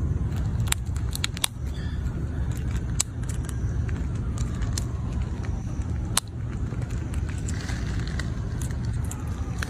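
Fox squirrel gnawing a nut in its shell, making sharp, irregular clicks and cracks as its teeth work the shell, over a steady low rumble.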